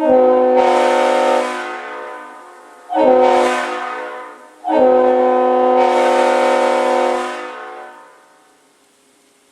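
Leslie locomotive air horn sounding a multi-note chord with a hiss of air, blown three times: long, short, long, each blast tailing off.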